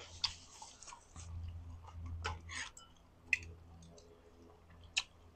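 Close-miked chewing of a mouthful of food, soft and wet, with faint rustling in the first second and a few sharp clicks, the last of them near the end as a spoon and chopsticks work in a glass bowl.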